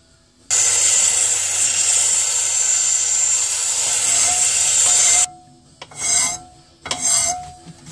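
Loud, steady rasping of metal being worked that starts suddenly and cuts off after about five seconds, then two shorter strokes of a hand file across a metal bracket clamped in a bench vise.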